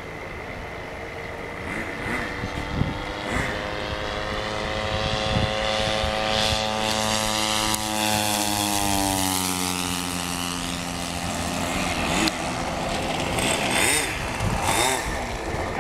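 Engine and propeller of a radio-controlled ESM T-28 model warplane in flight. The engine note climbs as the plane approaches, then drops sharply as it passes low by, about nine seconds in.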